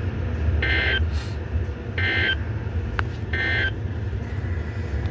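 Three short bursts of EAS/SAME digital data tones, about a second apart: the end-of-message code that closes a NOAA Weather Radio Severe Thunderstorm Warning. They play over a steady low hum.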